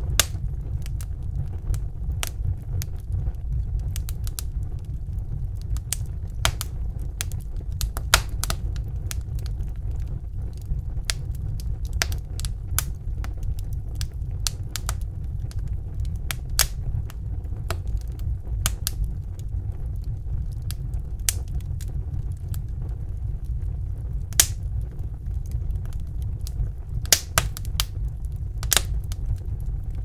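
Wood fire crackling: irregular sharp pops and snaps over a steady low rumble of burning logs, with a few louder pops near the middle and toward the end.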